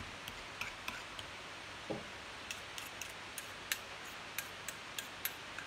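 Metal spoon clicking and scraping against a ceramic bowl as a breadcrumb mixture is stirred, a light, slightly irregular tapping of about three clicks a second.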